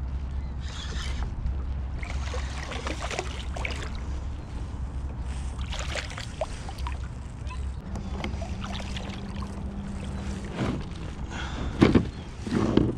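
A hooked striped bass fought to the side of a plastic kayak: reel cranking and the fish splashing and thrashing at the surface, then two loud thumps near the end as it is lifted in and flops against the hull.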